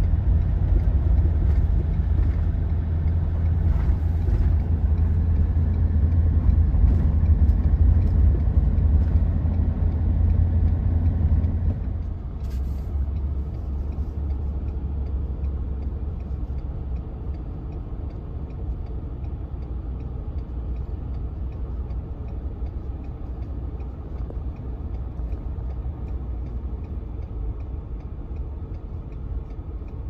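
Steady low road and engine rumble heard from inside a vehicle's cab at highway speed. The rumble drops somewhat in level about twelve seconds in.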